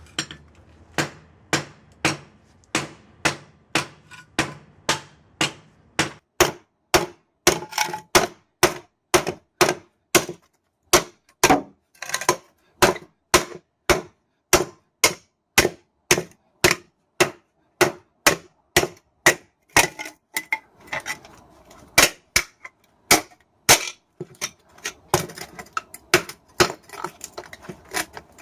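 Hammer blows striking a microwave oven transformer to break it apart for its copper windings: a long run of sharp strikes, about two a second, a little slower over the first few seconds.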